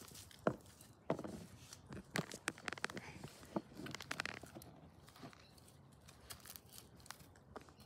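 Groodle puppy rooting in a garden bed among plants and soil, with irregular sharp crunches, clicks and rustling of leaves and dirt; the loudest crack comes about half a second in.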